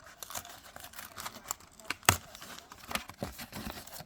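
Plastic or foil trading-card booster pack being handled and torn open, with crinkling and rustling and a few sharp clicks, the loudest about two seconds in.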